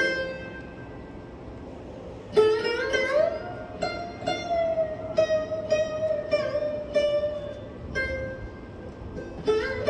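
Background instrumental music on a plucked string instrument in an Indian style. After a quiet start, a note about two seconds in slides up in pitch and is held while sinking slowly, with single plucked notes over it.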